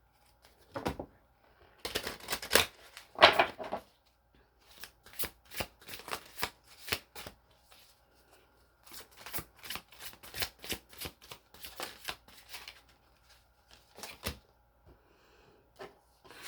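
A deck of tarot cards being shuffled by hand: runs of quick card flicks and slaps. The loudest runs come in the first few seconds, followed by a long, fainter series of clicks.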